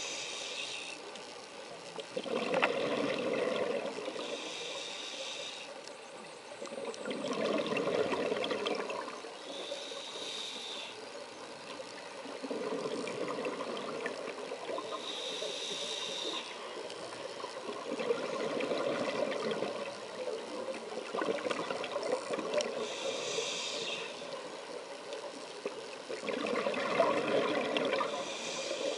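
Scuba diver breathing through a regulator underwater: a short high hiss of each inhale alternates with a louder, lower rush of exhaled bubbles, five or six breaths in a slow, regular rhythm.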